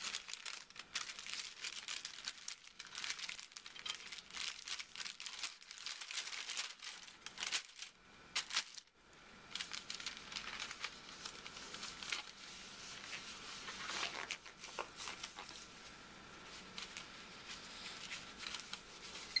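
Paper wrapper of a sterile glove pack being unfolded and handled, crinkling and rustling in many quick crackles, with a brief lull about eight seconds in.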